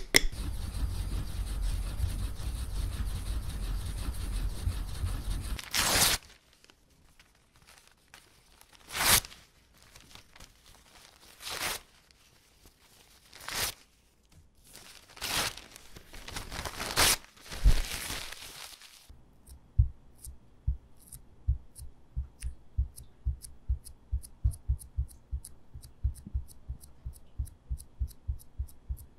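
Three painting-material sounds in turn. First a few seconds of fast, steady swishing of ink brushes over a stone inkstone. Then separate rustles and crinkles of a large sheet of rice paper being lifted and folded, and finally a seal dabbed into sticky red seal paste in a ceramic pot: soft taps with a small click, about three a second.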